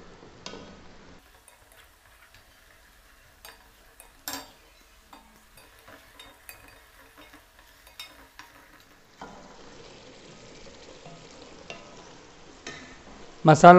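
Wooden spatula stirring a thick potato-and-tomato masala frying in an aluminium pot, with soft sizzling and scattered scrapes and knocks of the spatula against the pot. The sizzle fades about a second in and comes back near the end.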